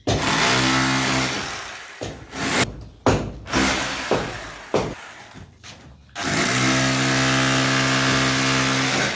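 Handheld electric power tool motor switched on and off: a run of about a second that spins down, several short bursts on the trigger, then a steady run of about three seconds near the end.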